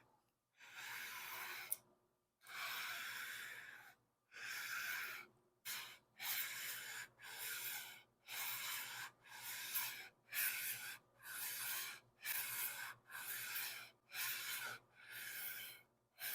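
Sandpaper on a plate-glass block being rubbed back and forth across the cast-iron deck of a Ford 302 V8 block. There are three slow strokes, then a quicker run of about one and a half strokes a second. This is a flatness check: even scratching over the whole head surface shows the deck is flat.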